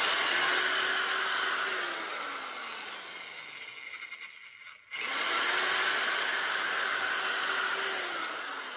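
Handheld electric metal shears cutting through a vinyl gutter, the motor running with a rasping cut. The motor spins up, then winds down and stops about five seconds in. It starts again at once and slows near the end.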